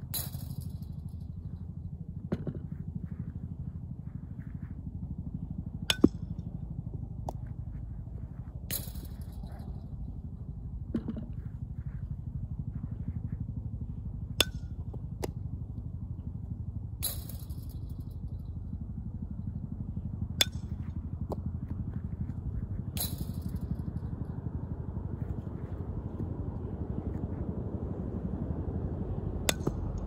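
Metal softball bat hitting ground balls, a sharp ringing ping every several seconds, with shorter sharp cracks in between, over a steady low rumble.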